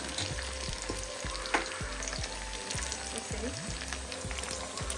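Buffalo meat pieces frying in hot oil in a steel kadai: a steady sizzle with scattered sharp crackles.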